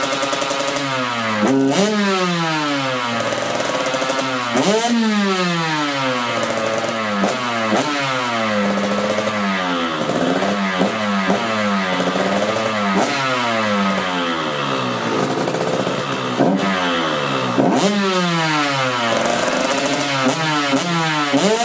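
Two-stroke dirt bike engine, fresh from a new cylinder head, CDI and reed valve block, running on the stand and being blipped to warm it up: the revs rise and fall back again and again, every two to three seconds.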